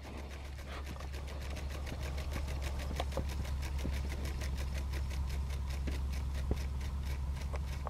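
Propeller of a rubber-powered free-flight model airplane spinning as its wound rubber motor unwinds, with an even ticking about five times a second over a steady low hum.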